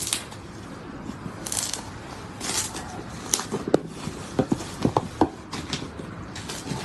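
Slime being squeezed and worked by hand: irregular sticky pops, clicks and squelches, with a sharp pop at the very start and a quick run of them in the second half.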